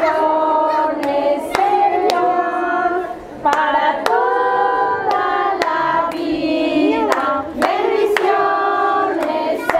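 A group of children singing a birthday song together over a lit cake, with hand claps keeping time about twice a second.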